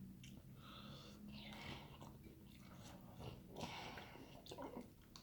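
Faint sounds of a person chewing and biting food, in scattered soft patches over a steady low hum.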